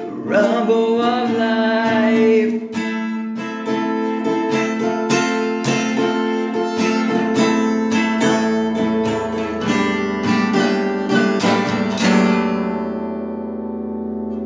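Guitar strummed in a steady rhythm at the end of a song, with a held, wavering sung note over the first two seconds. The last chord is left to ring from about twelve seconds in and fades away.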